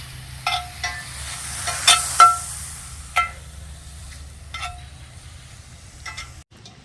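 Cut-up beef frying and sizzling in a pan while it is stirred, a metal utensil clinking sharply against the pan several times. The sizzle fades somewhat after a few seconds.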